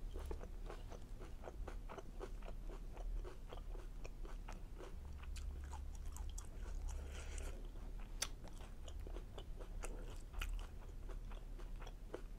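Close-up chewing of a chicken fajita in a soft tortilla: a steady run of soft, wet mouth clicks and smacks, with a few sharper clicks in the second half.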